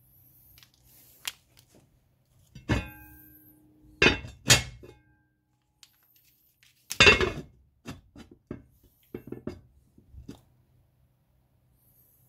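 Kitchenware being handled: a series of knocks and clinks of dishes and utensils, a few of them ringing briefly. The loudest clatter comes about seven seconds in, followed by lighter taps.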